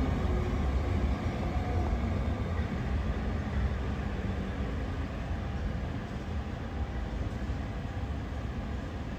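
A train running, a steady rumble with rail noise that slowly fades.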